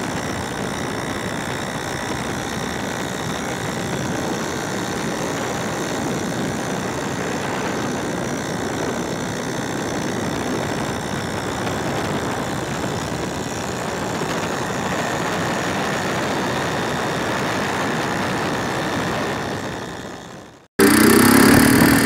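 Motorcycle riding at a steady speed, its engine mixed with steady wind and road noise. About 21 seconds in the sound cuts off abruptly, and a louder motorcycle engine comes in revving, its pitch rising, as the bike is ridden on a wheelie.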